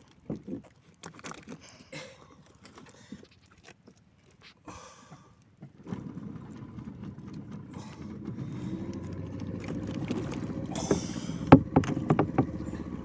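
Scattered knocks and clatter on a small fishing boat, then about six seconds in a boat engine comes in and runs steadily, growing slightly louder, with a few sharp knocks near the end.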